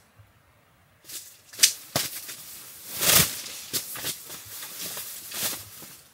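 Rustling and clattering of handling noise as a person moves about and sits down on a camp seat. A few heavier knocks come about two and three seconds in, followed by quicker fabric rustles and small clicks.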